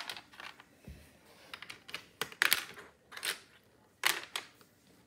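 Plastic Lego bricks clicking and clattering as they are picked from a loose pile and pressed onto a build: irregular sharp clicks, the loudest about two and a half and four seconds in.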